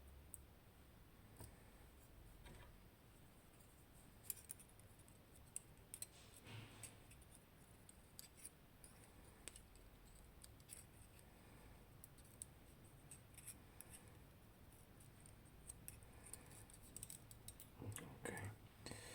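Faint, scattered small metallic clicks of tiny lock parts being handled as the springs are taken out of a Nemef NF2 pin-tumbler lock, with a short run of louder clicks near the end.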